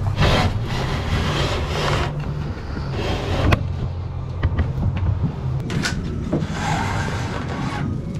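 A hand rubbing and sliding along a wooden countertop, with a few sharp knocks, over a steady low rumble.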